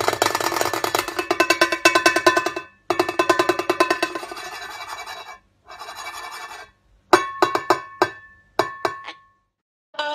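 A white cockatoo pecking and beaking a cymbal, making rapid rattling runs of metallic hits. About seven seconds in these give way to a few separate strikes that leave the cymbal ringing.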